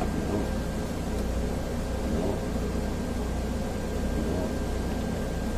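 Steady low machine hum with a faint high whine held over it.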